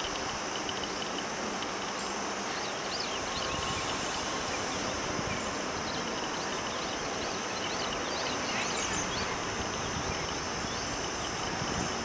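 Outdoor garden ambience: a steady background hiss with scattered short, high bird chirps, a cluster a few seconds in and a few more near the nine-second mark.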